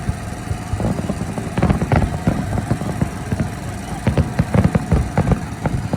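Fireworks going off: an irregular, rapid series of bangs and crackles over a continuous low rumble, thickest about a second and a half in and again around four to five seconds in.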